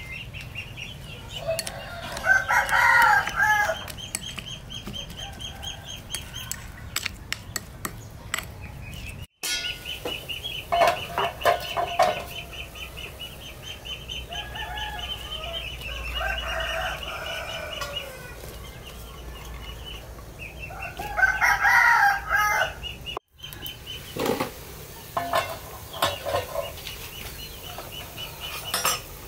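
Roosters crowing several times, each crow lasting a second or two, with hens clucking in between, over a steady high pulsing chirr.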